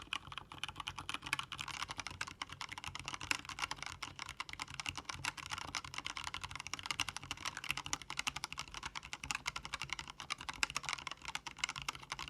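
Typing on a mechanical keyboard: a keycap sound test, with fast, continuous key clacks, many per second and without pause.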